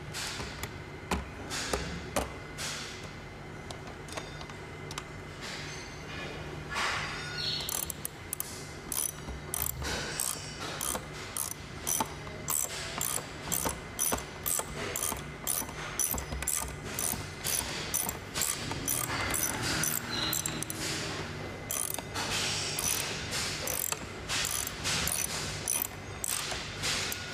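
Ratchet socket wrench clicking as a bolt is tightened to fix a castor wheel plate to a trolley frame: a few handling knocks, then a long run of quick, even ratchet clicks at about two a second, with a short pause midway.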